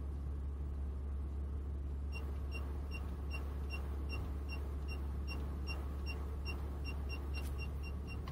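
A car's parking-sensor beeper sounds a steady series of short high beeps over the low hum of the idling car in reverse. The beeps quicken about two-thirds of the way through as the car backs closer to the vehicle behind it.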